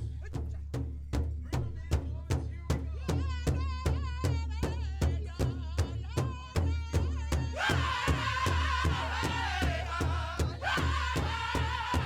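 Live music: a deep drum beaten in a steady pulse, about two and a half strokes a second. A high, wavering melody joins a few seconds in and swells louder and fuller in the second half.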